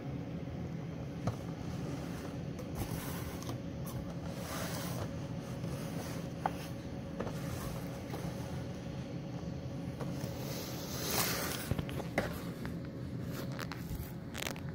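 Cardboard-and-plastic collectible boxes being handled and set down on a table: a few light knocks and clicks, and a short scraping rustle about eleven seconds in, over a steady low hum.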